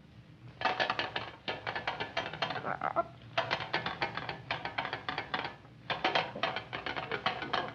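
A rapid rattling of clicks, in three bursts of about two seconds each with short pauses between.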